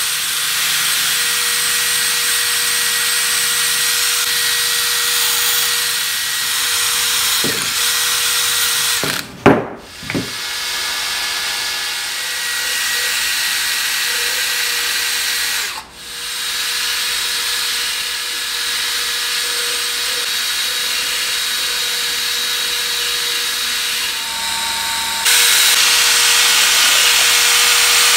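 A cordless drill running steadily, first spinning a wire wheel brush that scrubs the bark off the edge of a cedar board, then turning a mixing paddle through red epoxy in a plastic bucket. The motor stops and restarts twice and runs louder near the end.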